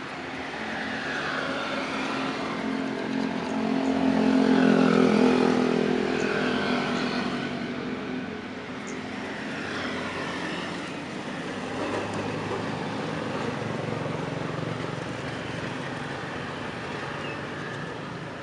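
Motor vehicles passing, engine noise swelling to its loudest about five seconds in and fading, then a second, quieter pass a few seconds later.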